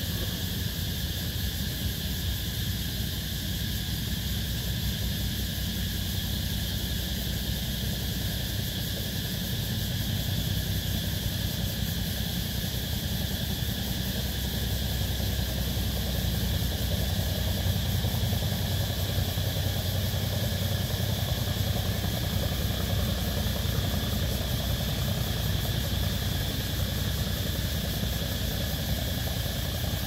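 A steady chorus of cicadas calling at night, made up of several unbroken high-pitched tones. Under it runs a low engine rumble that grows louder from about halfway through.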